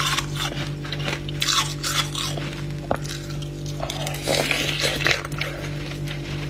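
Freezer frost being bitten and chewed: a run of crisp, crunchy bites a few times a second, with a few sharp clicks, over a steady low hum.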